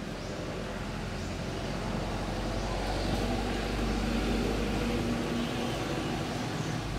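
A motor vehicle passing, its engine and road noise a steady hum that grows louder about halfway through and then eases off.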